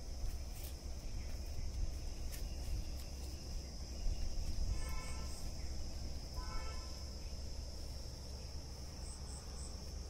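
Crickets chirring in a steady high drone, with a low rumble underneath and two short pitched calls about five and six and a half seconds in.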